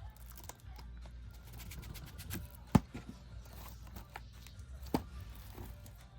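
Handling of a shrink-wrapped 4K Blu-ray case, with the plastic wrap being picked at: scattered crinkles and scrapes, and two sharp clicks about three and five seconds in.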